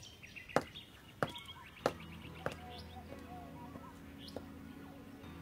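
Footsteps, about five evenly paced steps a little over half a second apart, over birds chirping. A low, steady music note comes in about halfway.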